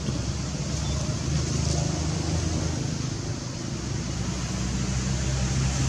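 Steady low mechanical hum of a running engine.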